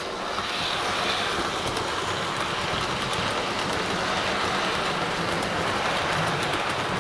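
Model North British D6xx Warship diesel locomotive and its rake of seven coaches running along the layout's track: a steady rushing rumble of wheels on rail with faint clicks, building over the first second as the train passes close.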